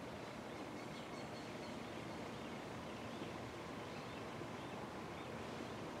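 Steady outdoor city ambience: an even hum of distant traffic, with a few faint bird chirps now and then.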